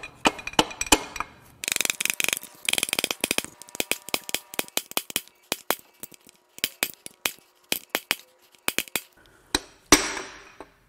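Hand tools clicking and tapping on the metal of a Cummins 5.0 V8 diesel being taken apart. There are two quick runs of ratchet-like clicking in the first few seconds, then scattered single clicks and taps, and one louder ringing metal clank near the end.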